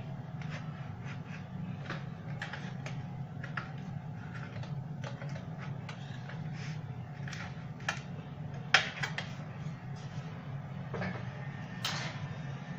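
A spatula scraping and clicking against a metal baking tray as baked fekkas logs are lifted off it, with scattered small knocks and one sharper knock about nine seconds in, over a steady low hum.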